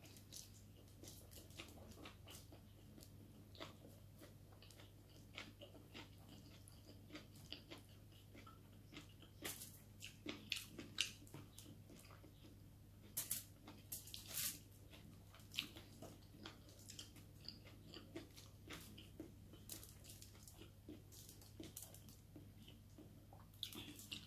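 Faint, close-up chewing and mouth sounds of a person eating rice and vegetables by hand, with scattered soft clicks and crunches. The clicks come thicker and louder about ten and fourteen seconds in.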